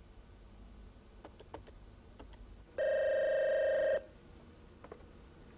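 Desk telephone's electronic ringer sounding one warbling trill, lasting a little over a second, with a few faint handset clicks around it.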